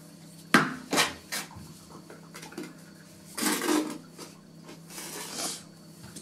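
A small metal trowel spreading tile adhesive over a bare concrete floor: three sharp clicks and taps of the blade in the first second and a half, then two longer scrapes about three and a half and five seconds in.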